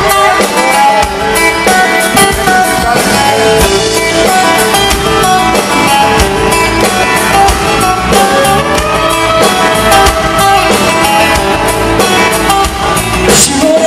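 Live band playing an instrumental passage, guitar over a steady drum beat, before the vocals come in.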